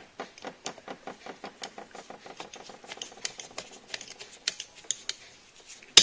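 Phillips screwdriver driving in the screw that fastens the earth wire at a refrigerator compressor's start relay: a rapid run of small clicks, several a second, with a louder click at the very end.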